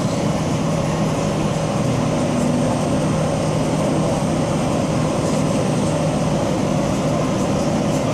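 Steady cabin noise of a Boeing 787-9 airliner on approach, heard from inside the cabin: the even rush of airflow and the rumble of its GEnx-1B engines, with a low steady hum under it.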